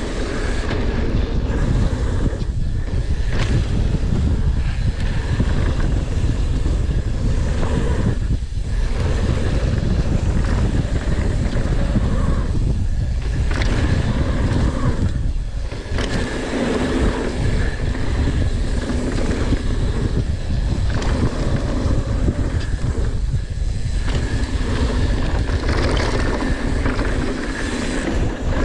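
Mountain bike descending a dirt downhill trail: steady wind rush on the camera microphone with tyre noise and the rattle of the bike over the ground, easing off briefly several times.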